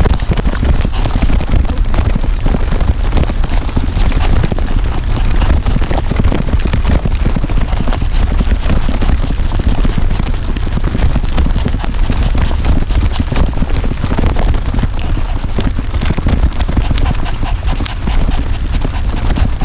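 Pet stroller's small wheels rolling over a paved path: a dense, steady rattle of small clicks over a constant low rumble.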